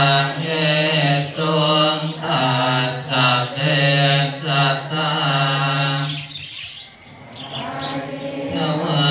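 Thai Buddhist evening chanting (tham wat yen): a group recites Pali in unison on a steady low monotone, in short phrases. The chanting fades out about six and a half seconds in and starts again a second later.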